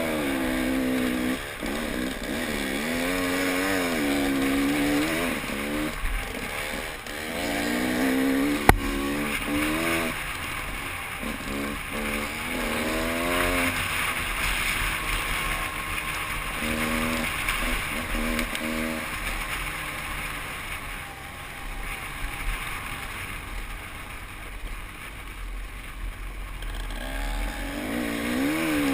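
Engine of an over-250cc enduro motorcycle, revving up and down over and over as it is ridden along a trail, with a haze of wind and trail noise. About nine seconds in there is a single sharp knock.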